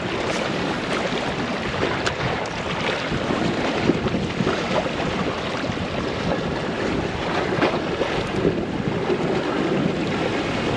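Wind buffeting the microphone over water lapping against a kayak, with a few faint knocks.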